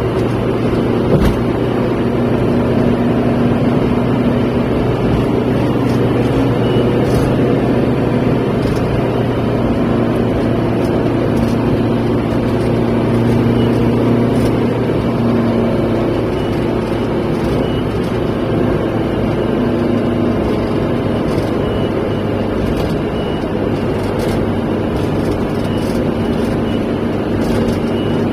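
Steady road and engine noise of a car driving at speed on a highway, heard from inside the cabin.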